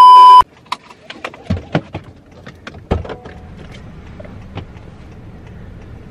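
A loud steady test-tone beep from a TV colour-bars effect cuts off sharply just after the start. Scattered clicks and knocks follow, then the steady low rumble of a car and traffic heard from inside the cabin.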